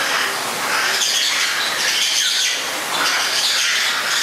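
Many birds chirping and calling at once, a dense chorus of high chirps and squawks that swells and eases about once a second.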